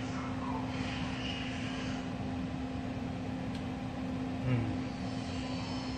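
Steady mechanical drone with one low held tone, and a short soft bump about four and a half seconds in.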